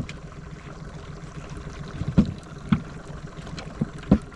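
Water lapping around a small boat, with a few short, dull knocks against the hull, the loudest about two seconds in.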